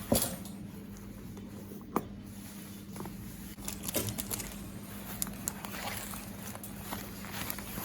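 Scattered light knocks and clicks over a steady low hum, the strongest near the start and about two and four seconds in.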